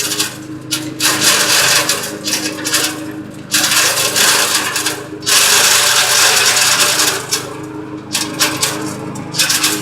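Candlenut shell-cracking machine running: a steady motor hum under a loud, dense rattle and crackle of hard nuts being cracked. The rattle comes in surges a few seconds long, with brief dips between them.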